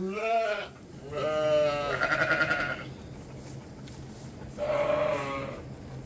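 Sheep bleating three times: a short bleat at the start, a long one about a second in that turns quavering in its second half, and another near the end, over a steady low hum.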